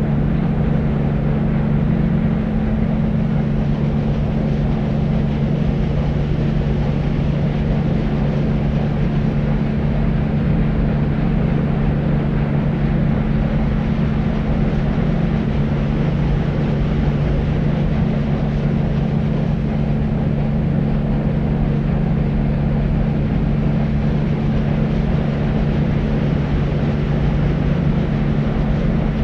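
Deep white noise: a steady, unchanging rushing noise weighted toward the low end, with a low hum in it and little high treble.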